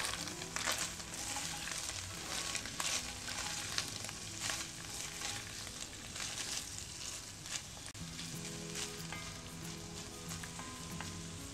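Pork chunks, bacon strips and sliced onions sizzling in a hot pot while being stirred with a wooden spoon: a steady frying hiss with irregular crackles and scrapes, busiest for the first eight seconds.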